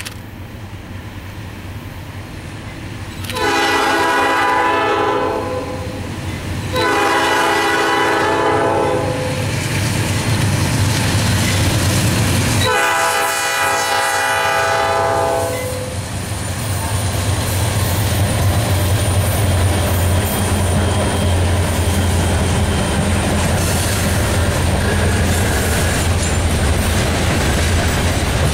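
Freight train's GE B40-8 diesel locomotives sounding three long horn blasts for a grade crossing, the last as the locomotives reach the crossing. After that comes a steady low engine rumble and the clickety-clack of freight cars rolling past.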